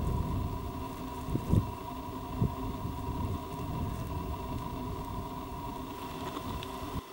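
Wind rumbling on the camera microphone, with a few short gusty thumps in the first few seconds, over a faint steady high hum. It drops away suddenly near the end.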